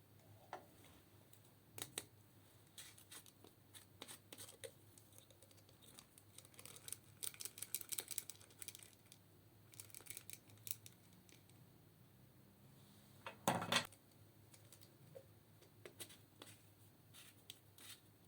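Eyeshadow and makeup being broken up and worked into slime: scattered sharp clicks, crackles and scrapes. They come thickest about seven to nine seconds in, and the loudest pair of snaps comes about thirteen seconds in.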